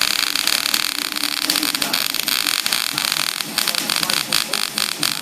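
Electric welding arc crackling and sizzling steadily, with a few brief breaks as the arc stops and restarts.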